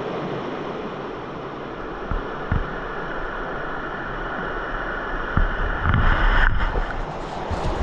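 Mountain stream rushing steadily, with wind buffeting the microphone and a few low bumps, louder about six seconds in.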